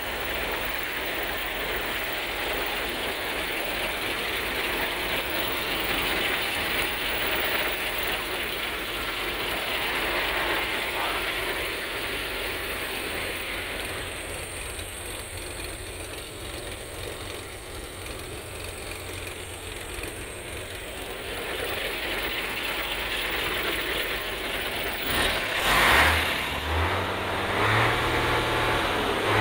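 Steady rushing wind and handling noise with some mechanical rattling. About 26 seconds in, the MAN 26.291 tipper's diesel engine starts with a loud burst, rises in speed and settles into a steady idle.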